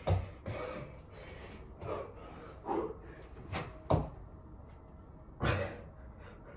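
Thuds of hands and feet landing on a hard floor during burpees, with heavy exhaled breaths between them. Sharp thumps come right at the start and twice in quick succession about three and a half seconds in, and a loud breath comes near the end.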